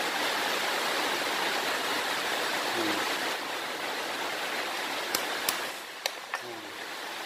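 Heavy rain falling on the roof, a dense steady hiss that eases a little about halfway through. A few sharp clicks a little after five seconds in.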